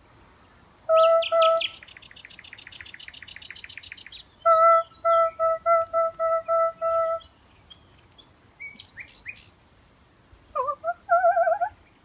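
A woman imitating nightingale song with loud, clear repeated notes (a run of about eight near the middle) and wavering notes near the end. She trades phrases with a common nightingale's fainter, higher song: a rapid clicking rattle and quick rising whistles.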